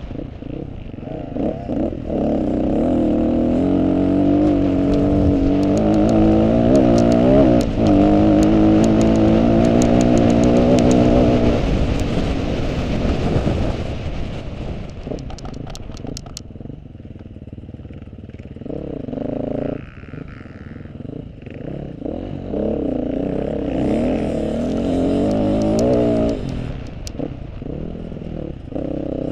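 KTM off-road motorcycle engine revving up and down as it is ridden, with its pitch rising and falling. It is loud for the first dozen seconds, then lower, with scattered sharp clicks.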